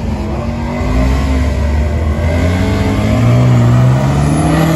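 Dodge Ram 2500 pickup's engine revving hard on the start line during a burnout. Its pitch climbs steadily over a couple of seconds, then holds high near the end.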